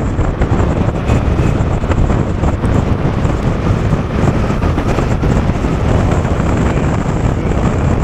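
Touring motorcycle riding along a city street: steady engine and road noise with wind rushing over the microphone.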